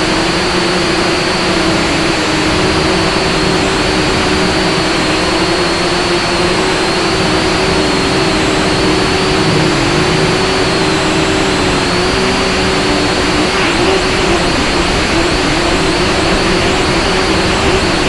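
Small quadcopter drone's motors and propellers buzzing steadily, heard very close through the drone's own onboard camera, the pitch wavering up and down as the throttle keeps correcting against the wind.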